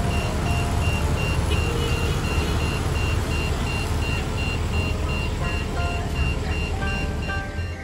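City street traffic, scooters and cars running past as a steady low rumble, with a high beep repeating about three times a second, under background music.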